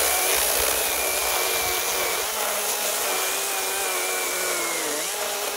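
Wild Badger Power 40V cordless chainsaw with a 16-inch bar cutting down through a thick pine log: a steady electric motor whine with the chain rasping through the wood. The pitch sags briefly about five seconds in, then recovers.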